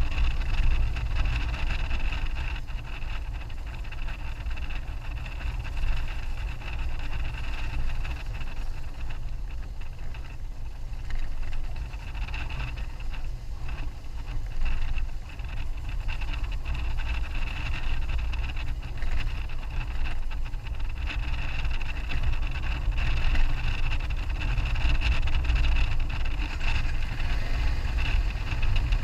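A 2001 BMW F650GS Dakar motorcycle riding along, its single-cylinder engine running steadily under a heavy rumble of wind on the camera microphone.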